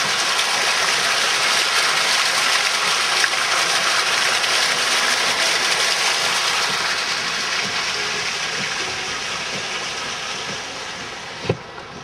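Car driving through floodwater, water rushing and spraying against the body and wheel arches in a loud hiss that builds over the first second and slowly eases off in the second half. A single thump near the end.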